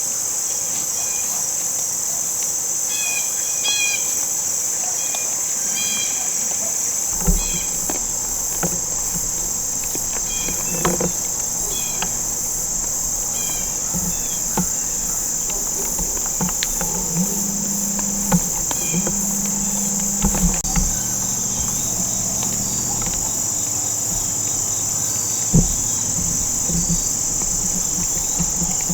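Steady, high-pitched chorus of insects such as crickets, with a few short chirps in the first several seconds and occasional soft low thumps.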